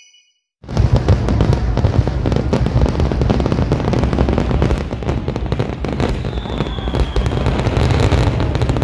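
Fireworks display going off in rapid succession: dense crackling over continuous deep booms, starting abruptly about half a second in.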